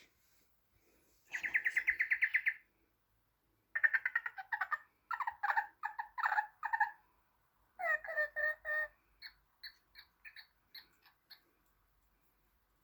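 Bird-like chirping. It opens with one rapid trill, goes on to two runs of quick chirps, and ends with a string of about eight short, high peeps.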